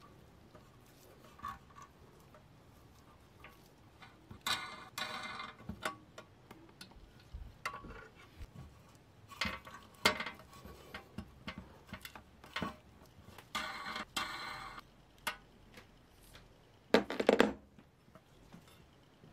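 Small hard parts being handled on a workbench: scattered clicks and taps, three short bursts of scraping and rattling, and a louder clatter near the end.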